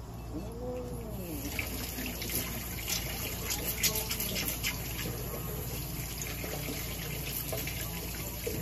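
A pet brush drawn again and again through a long-haired cat's fur: a scratchy, hissing rustle made of quick strokes, starting about a second in.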